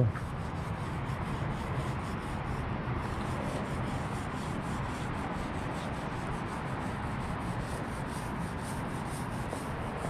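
Small foam paint roller rolling paint back and forth along a car's roof, a steady rubbing.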